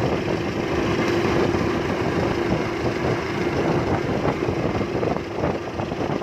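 Small fishing boat's engine running steadily with a constant hum.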